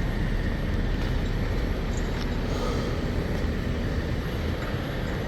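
Steady low rumble of a heavy diesel engine running.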